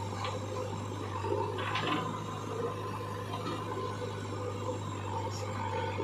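JCB 3DX backhoe loader's diesel engine running steadily while soil pours from its bucket into a tractor trolley, with a brief rush of falling soil about two seconds in.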